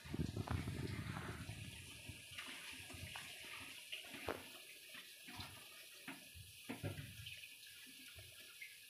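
Pot of beef and vegetable soup at a rolling boil: bubbling with scattered pops, loudest in the first couple of seconds and growing fainter.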